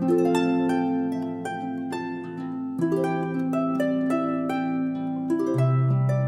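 Instrumental music: a melody of quick plucked-string notes over long held low notes.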